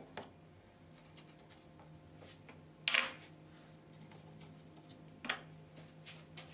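A few short metallic clinks and scrapes of a metal hand blade against the glass and timber of a freshly glazed window sash, the loudest a brief scrape about three seconds in.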